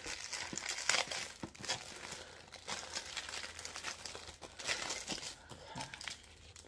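Small plastic baggies of diamond painting drills crinkling and rustling as hands handle and pull them open, with a sheet of paper rustling under them. The crackles are densest in the first few seconds and thin out toward the end.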